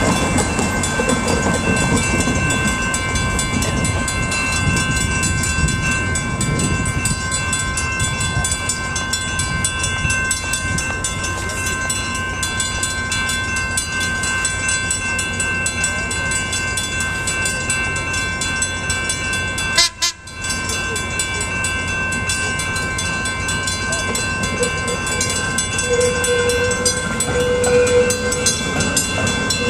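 Grade-crossing warning bells ringing steadily as a vintage PCC streetcar approaches. A steady hum joins near the end as the car draws close, and the sound drops out briefly about two-thirds of the way through.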